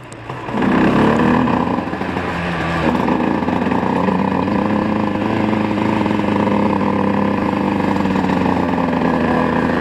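Tuned 50cc two-stroke moped engine accelerating about half a second in, then running at a nearly steady speed.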